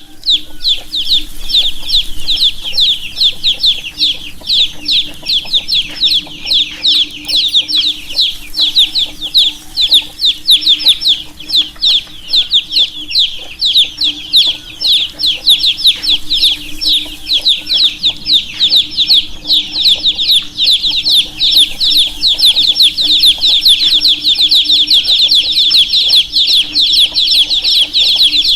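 A group of baby chicks peeping without pause: many short, high chirps overlapping, each dropping quickly in pitch. A faint steady hum runs underneath.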